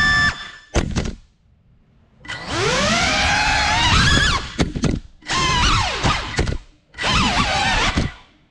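Whine of a small FPV drone's electric motors, rising and falling in pitch with the throttle. It cuts out for about a second near the start, then drops out briefly a few more times.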